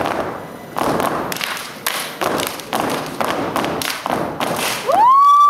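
Step team stamping boots and clapping in a stepping routine, sharp beats about two a second. Near the end a loud, shrill, held call breaks in, its pitch bending.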